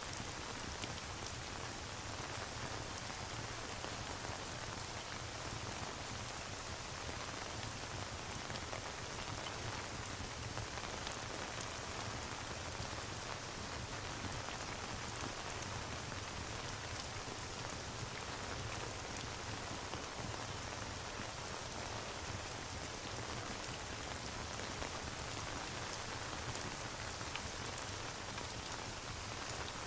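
Steady rain falling, an unbroken hiss with fine patter, mixed with a crackling fireplace.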